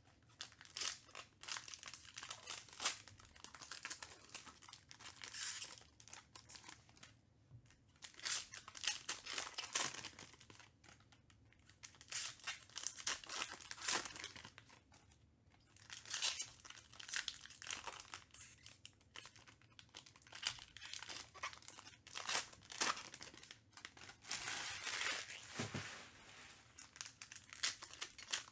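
Foil wrappers of Panini Prizm baseball card packs being torn open and crinkled by hand, in repeated bursts of crackling every few seconds with short quiet gaps between.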